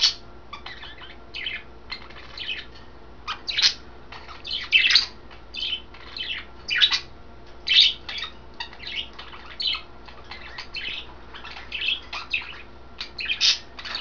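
Pet budgerigars chirping in a quick, continuous run of short, high calls.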